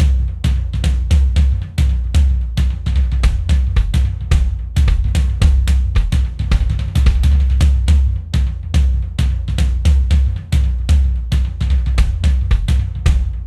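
Background music: a fast drum-kit beat with bass drum and snare over a heavy bass line.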